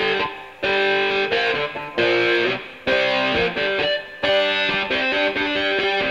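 Background rock music led by electric guitar, played as repeated chord phrases with short breaks between them.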